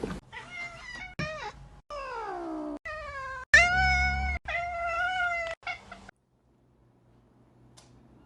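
A domestic cat meowing about six times in a row. The calls vary in pitch, one is drawn out and falling, and the loudest comes a little past the middle. The meowing stops about six seconds in.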